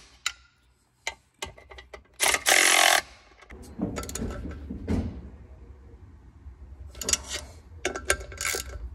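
Ratchet wrench clicking in quick runs as the clutch pressure plate bolts are tightened a little at a time, one run about two seconds in and a cluster of clicks near the end, with metal tools knocking in between.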